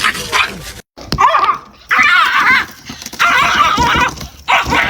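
A dog vocalizing in a run of drawn-out whining, howl-like calls whose pitch wavers up and down, four of them after a brief silence about a second in.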